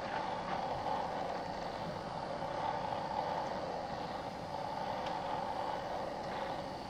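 A steady, unbroken drone, strongest in a narrow middle-pitched band, with a few faint ticks over it.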